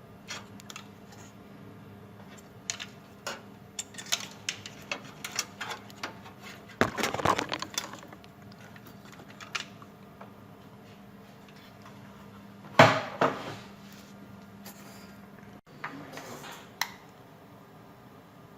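Small metal tools clinking and tapping during hand work on a motherboard while bulged capacitors are desoldered. There are scattered light clicks, a denser clatter about seven seconds in, and one louder knock about thirteen seconds in.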